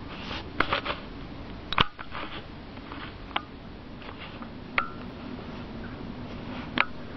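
Indoor handling noise and breathing from the person filming, over a steady low hum and hiss. About six sharp clicks and taps come at uneven intervals, the loudest a little under two seconds in.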